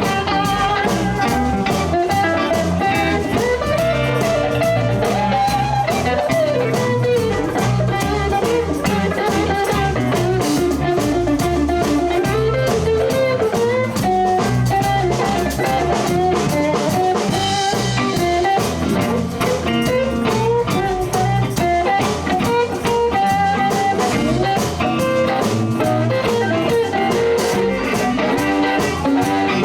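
Live blues band playing an instrumental passage: an electric guitar lead with bent notes over drums and bass.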